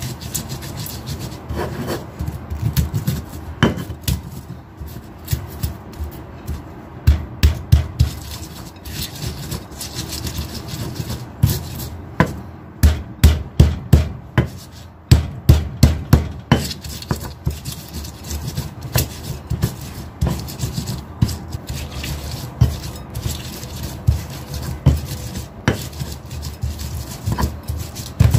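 Spice paste being ground by hand with a pestle in a mortar: rubbing, scraping strokes with irregular knocks, and a run of hard pounding strikes, about two a second, around the middle.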